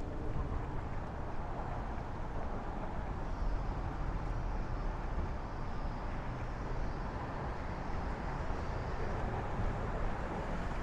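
City street ambience: a steady rumble of traffic, with no single event standing out.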